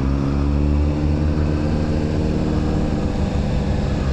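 Honda CBR sport bike's engine running at a steady cruise through town, heard from the rider's position with wind noise over the microphone; the engine note shifts about three seconds in.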